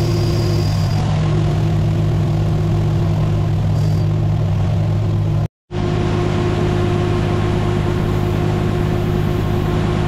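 Steady drone of a combine and the tractor pulling its grain cart, engines running under load while shelled corn is unloaded. The sound drops out completely for a split second a little past halfway, then the same drone resumes.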